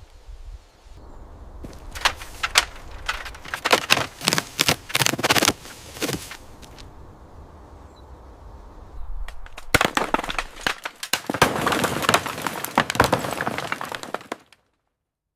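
Hard debris clattering and cracking as it is handled: a run of sharp knocks, then a denser spell of clattering from about ten seconds in that cuts off abruptly near the end.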